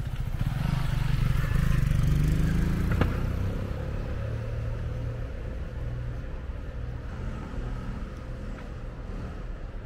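Motorcycle passing close by, its engine rising in pitch as it accelerates, with a sharp knock about three seconds in, then steady street traffic.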